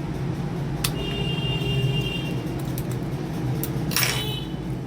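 Steady rumble of street traffic, with a thin horn-like tone from about one to two seconds in. There is a sharp click just before it and a short scrape about four seconds in.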